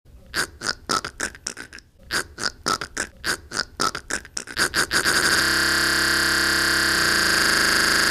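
A person's voice making quick rhythmic mouth sound effects, about five a second with a short break, then switching a little after five seconds to a long held buzzing note.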